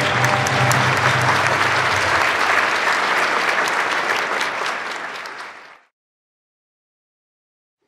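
Audience applauding after a dance, many hands clapping, with the last notes of the dance music fading under it in the first two seconds. The applause fades out about six seconds in.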